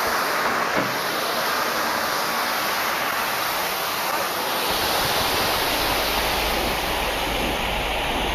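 Steam hissing steadily from a Peppercorn Pacific steam locomotive's open cylinder drain cocks as it starts away. A low rumble joins about five seconds in.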